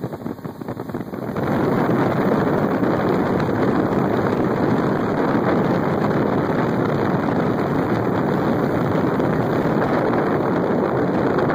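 A speedboat under way: a steady rush of wind buffeting the microphone over the boat's running noise. The rush jumps louder about a second and a half in.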